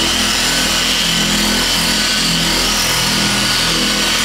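Griot's Garage dual-action polisher running steadily at a low speed setting, its foam pad spreading compound over the car's paint.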